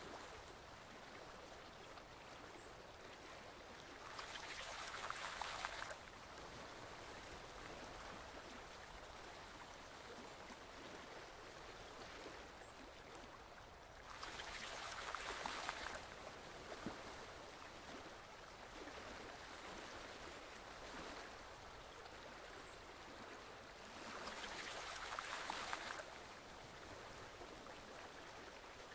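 Stream water flowing steadily and faintly, with a louder rush of water for about two seconds, three times, ten seconds apart.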